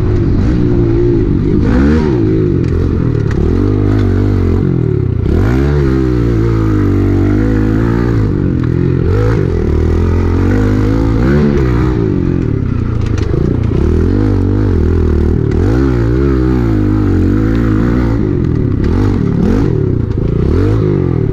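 Kawasaki KLX110 pit bike's small single-cylinder four-stroke engine being ridden, its revs rising and falling again and again with throttle and gear changes. Rattles and knocks from the bike come over the rough trail.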